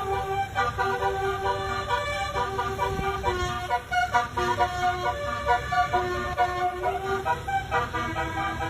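Basuri telolet horn, a musical multi-tone vehicle horn, playing a melody: held horn notes change pitch every half second or so, over a low rumble.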